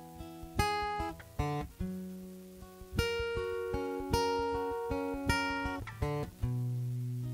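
Solo acoustic guitar playing chords, each struck sharply and left to ring and fade before the next, with no voice.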